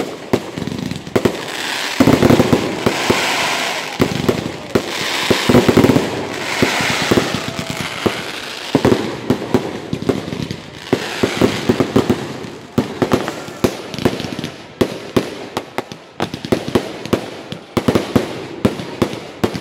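Fireworks going off without pause: a stream of sharp pops and bangs from aerial bursts, with crackling that swells and fades several times.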